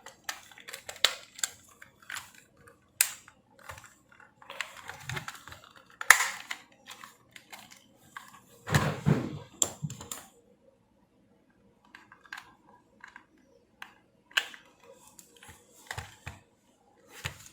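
Small plastic parts of a PS4 controller being handled and fitted together: irregular clicks, taps and scrapes, with a longer, louder stretch of handling noise about nine seconds in and sparser clicks after it.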